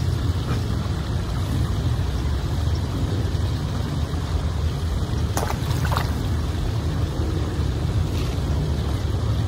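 Steady low outdoor rumble with a faint hiss above it, and two brief faint high sounds a little past halfway.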